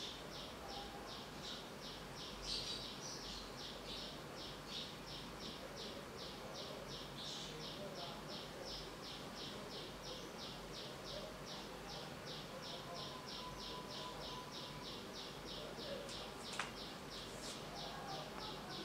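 Morning outdoor ambience coming through an open window: a steady, rhythmic high chirping at about three pulses a second, with a few other chirps now and then.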